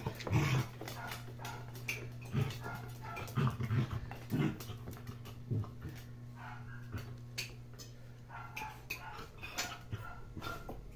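An adult dog and puppies play-growling in short low grunts while they wrestle, with scattered light clicks of paws and claws on a tiled floor.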